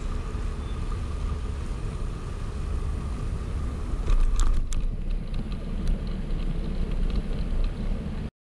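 Wind rumbling on the microphone with road noise while cycling, swelling a little about four seconds in, with a few sharp clicks around the middle. The sound cuts off abruptly near the end.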